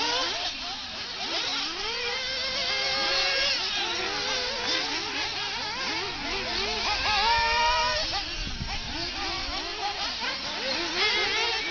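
Several 1/8-scale off-road RC buggies racing, their small engines revving up and down over one another, with one revving up loudly about seven seconds in.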